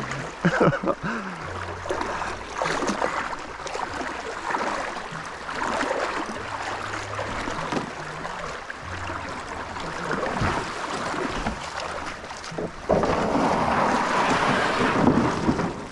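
Creek water rushing through rapids around a canoe, with wind on the microphone. The rushing swells louder for a couple of seconds near the end.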